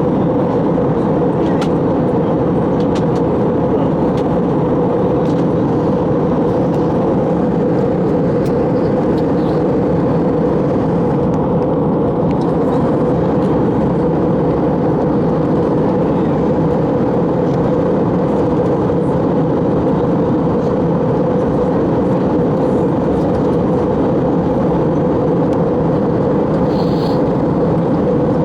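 Steady cabin noise of an Airbus A321 in flight: an even, deep rush of airflow and jet engines that holds the same level throughout, with a few faint ticks over it.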